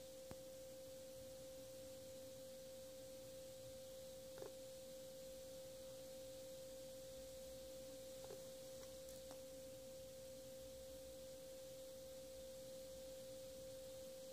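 Near silence with a faint, steady hum on a single pitch, and a couple of faint ticks about four and eight seconds in.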